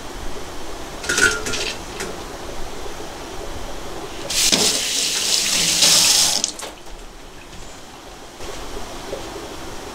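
Kitchen tap running into a sink: a brief gush about a second in, then a louder run of about two seconds in the middle before it is turned off.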